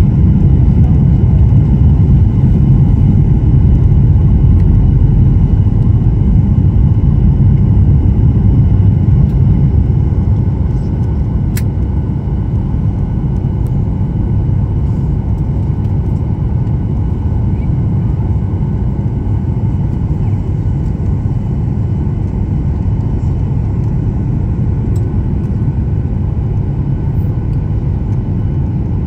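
Steady low rumble of an airliner's engines and rushing air heard from inside the passenger cabin, easing slightly in level about ten seconds in.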